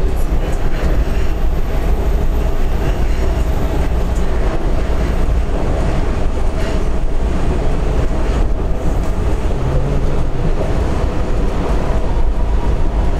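Washington Metro railcar running at speed, heard from inside the car: a steady rumble of wheels on rail.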